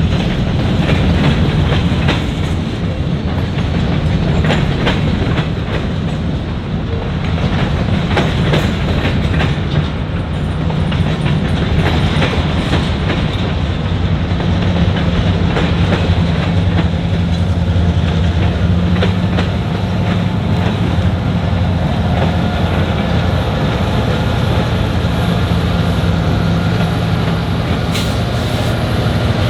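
Freight train of grain cars rolling past at steady speed, a continuous loud rumble with wheels clicking over rail joints.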